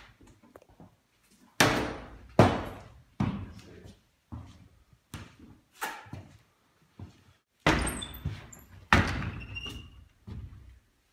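A stick bashing the iron grille of a bank teller's cage, about ten hard blows a second or so apart, each with a short rattling decay. The two loudest come about two seconds in.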